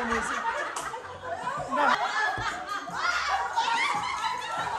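People laughing and chuckling together.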